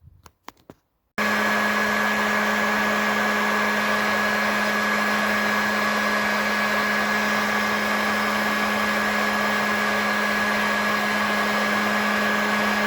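Electric heat gun running with a steady blowing rush, a low hum and a thin high whine, starting abruptly about a second in and holding at an even level.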